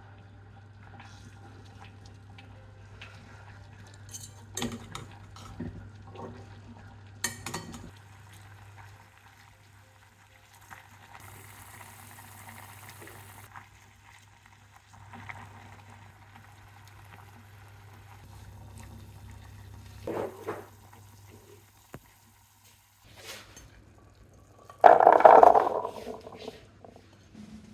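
Home cooking sounds: utensils and dishes clinking and knocking, with a couple of seconds of hiss about eleven seconds in. A louder noise about a second long comes near the end, over a steady low hum.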